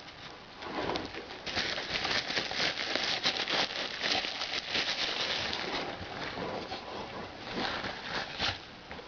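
Recorded birdsong played through a small toy alarm clock's speaker, a dense thin chirping that starts about a second and a half in and fades out near the end.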